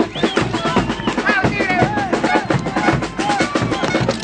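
Band drums, a bass drum among them, beating a fast steady rhythm, with voices shouting over the drumming.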